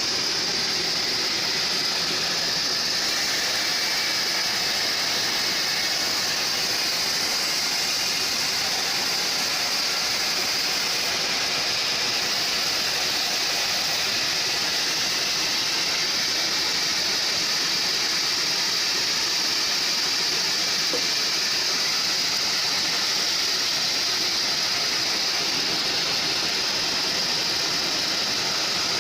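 Homemade bandsaw sawmill running: a steady, even mechanical noise with a strong high hiss that holds unchanged throughout.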